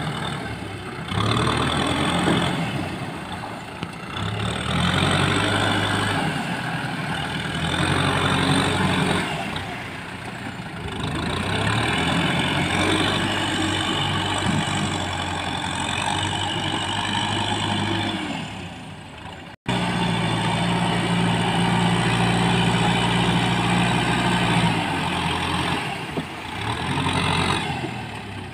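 Kubota tractor's diesel engine working under load as it pushes mud with its front blade through a flooded field. The engine note swells and eases several times, breaks off abruptly about two-thirds through, then runs steadily.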